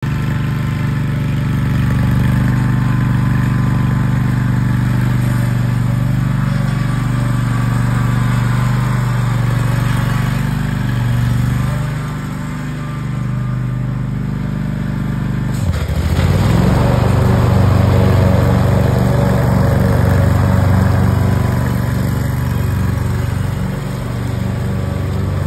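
Zero-turn riding mower's engine running steadily as it drives across the lawn. About two-thirds of the way in, a sudden click and a brief dip in pitch, after which it runs louder and rougher.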